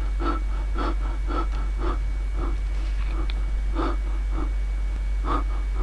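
A person voicing a monkey puppet with short, breathy panting grunts, about two a second, over a steady low electrical hum.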